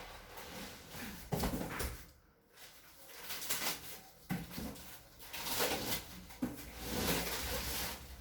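Rustling and scraping of plastic wrapping on a vacuum-packed mattress being handled, in uneven bursts with a few knocks and a short pause.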